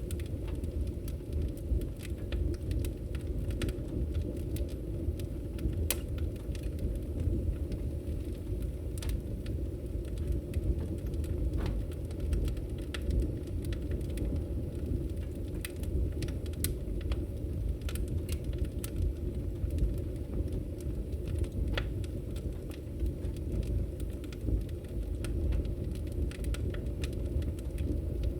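Wood fire crackling in a fireplace: scattered sharp pops and snaps, irregular and frequent, over a steady low rumble.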